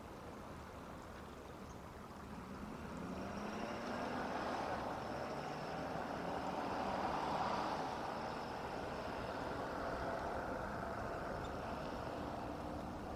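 A distant motor vehicle passing, its engine and road noise swelling for several seconds and then slowly fading.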